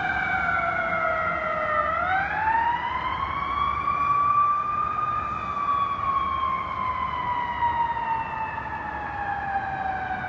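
Fire department emergency siren sounding a slow wail. The pitch falls, rises quickly about two seconds in, then falls slowly for the rest, growing fainter toward the end as the responding apparatus moves off.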